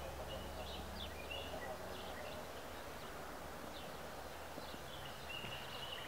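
Faint outdoor ambience: scattered short, high bird chirps over a steady low hum and hiss.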